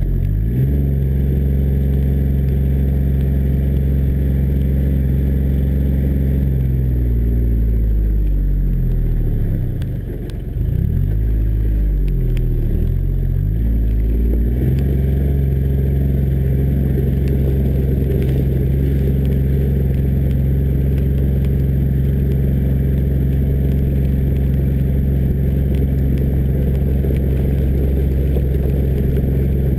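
John Deere Gator 855D's three-cylinder diesel engine running as the vehicle drives, heard close to the front-left wheel. Engine speed drops and rises several times in the middle, then holds steady for the rest.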